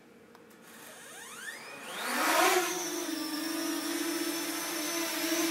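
Parrot Anafi quadcopter's motors spinning up about a second in, pitch rising fast, then holding a steady propeller hum with a thin high whine as it hovers.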